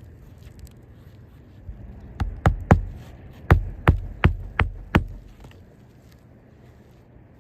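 Hammer blows driving nails into roof shingles: about eight quick strikes in a burst roughly two to five seconds in.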